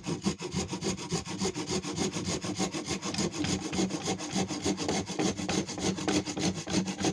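Wood being worked by hand with fast, even back-and-forth strokes, several a second: a saw or rasp cutting into wood from an old chair.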